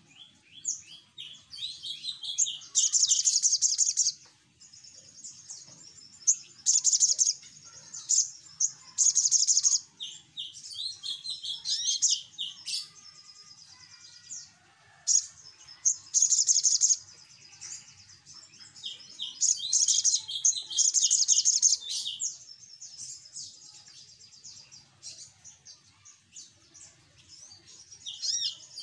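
Sogok ontong sunbird singing a busy, noisy song: loud bursts of rapid, high, buzzy trilling and runs of quick falling chirps, with softer twittering between the bursts.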